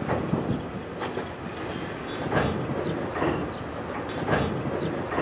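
Freight train of autorack cars rolling past close by, its wheels clacking over rail joints about once a second with a steady rumble underneath. A brief faint squeal comes in near the start.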